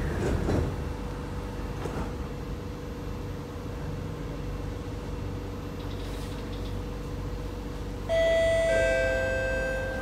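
Two-note falling ding-dong chime from a C151A MRT train's public-address system, starting about eight seconds in and ringing out: the chime that comes before the next-station announcement. Under it, a steady hum inside the stopped train car.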